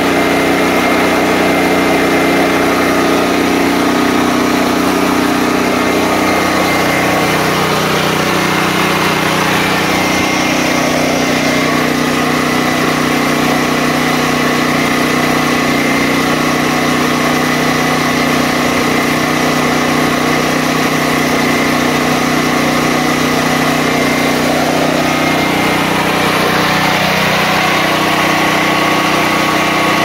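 DuroMax XP13000EH portable generator's gasoline engine running steadily with no load, its fuel selector switch bypassed. The engine speed shifts slightly about seven seconds in and again near the end.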